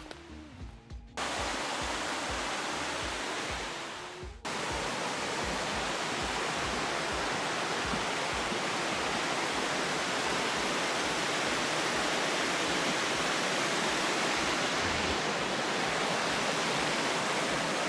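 Steady rushing of a rocky mountain creek spilling over small cascades. It cuts in suddenly about a second in, dips, and cuts in again around four seconds in.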